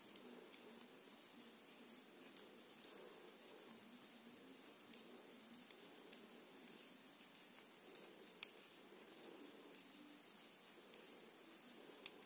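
Faint, irregular clicking of metal knitting needles as stitches are worked in wool, with a sharper click about eight seconds in and another near the end.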